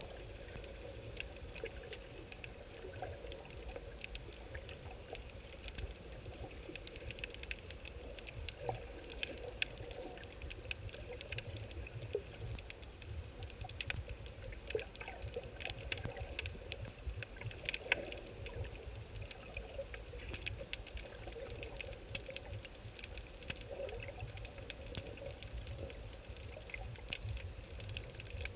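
Underwater sound through an action camera's waterproof housing: a steady low rumble of moving water with constant faint clicking and crackling, a few clicks louder than the rest.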